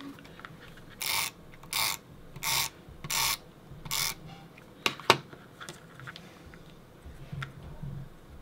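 Adhesive tape runner drawn along a paper border strip: five short rasping strokes in quick succession, about 0.7 s apart, laying tape to join two border strips. Two sharp clicks follow about five seconds in.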